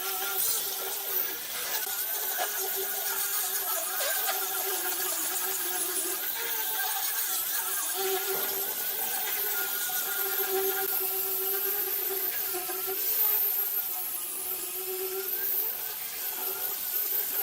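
A power tool's electric motor running steadily with a high whine and a hiss, its pitch wavering slightly as it works.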